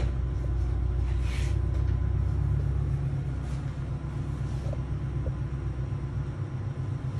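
A steady low rumble, with faint brief rustles about a second in and again around three and a half and four and a half seconds.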